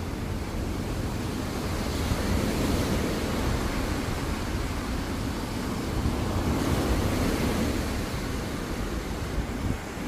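Small ocean waves breaking and washing up a sandy beach in a continuous rushing surf, swelling a little about two seconds in and again near the seventh second, over a steady low rumble.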